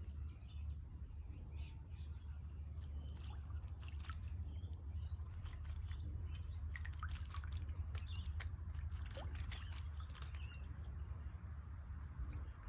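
Female red-capped parrot bathing, splashing in water: quick runs of small splashes and drips that start about three seconds in and die away about two seconds before the end.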